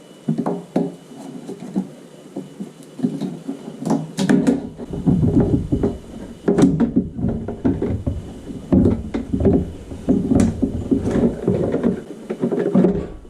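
Hands handling parts: a long, irregular run of clunks, knocks and clicks with rattling and rustling in between, busiest from about four seconds in.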